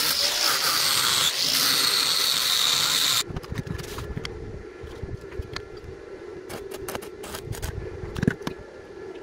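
Angle grinder grinding steel, harsh and loud, cutting off suddenly about three seconds in. After it, a quieter steady hum with scattered light clicks and knocks of metal pieces being handled.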